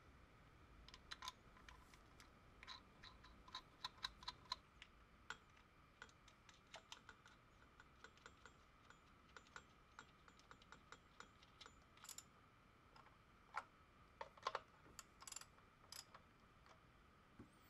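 Faint, irregular clicks and taps of hands fitting parts and wiring back into a car's engine bay, a scatter of small sharp clicks with a few louder knocks in the second half.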